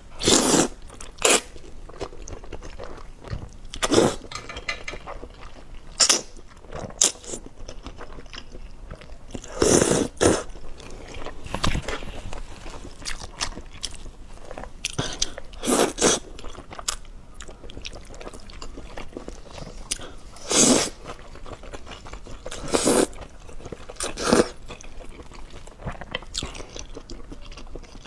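A woman slurping wide flat noodles (mianpi) in chili sauce and chewing them wetly, with about a dozen loud slurps a few seconds apart.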